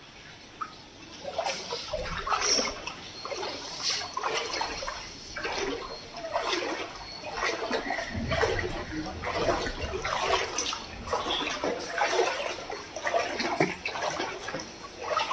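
Water splashing and sloshing in irregular surges, starting about a second and a half in.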